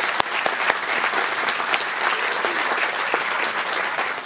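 Theatre audience applauding at the end of a song: dense, steady clapping from many hands.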